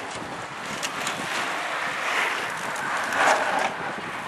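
Wind rushing over the camera microphone as a steady noise, with a louder gust a little after three seconds.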